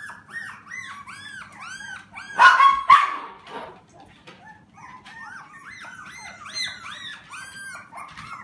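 Four-week-old Alaskan Klee Kai and Shiba Inu puppies whining and yipping in a rapid string of short, high, rising-and-falling cries, with a louder burst of yelping about two and a half seconds in.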